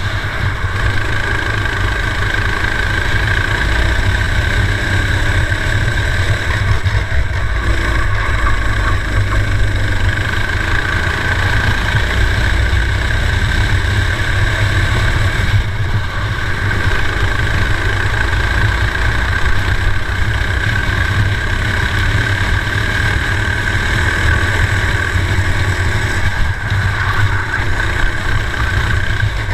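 Racing kart engine running hard, heard from a camera mounted on the kart, with wind and rumble on the microphone. The sound stays steady, dipping briefly about three times.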